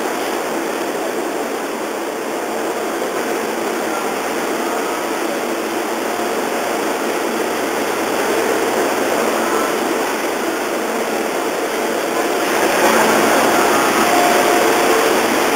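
Steady rushing noise of a busy railway station platform, with faint voices of people nearby. It grows louder about twelve seconds in.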